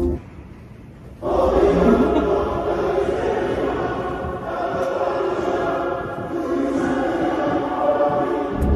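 Music with a choir singing, many voices sustaining chords; it comes in strongly about a second in after a brief lull.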